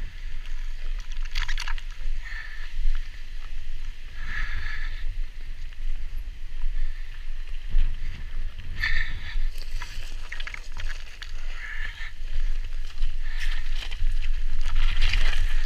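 Mountain bike descending a rocky, gravel trail: tyres crunching over loose stones and the bike clattering over bumps, with a steady low wind rumble on the action camera's microphone.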